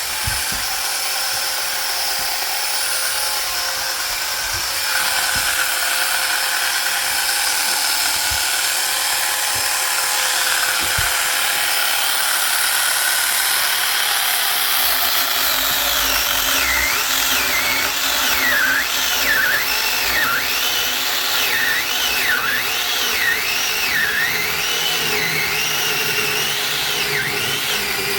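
Power saw running continuously while cutting firewood logs. From about halfway, its pitch dips and recovers over and over, about once or twice a second.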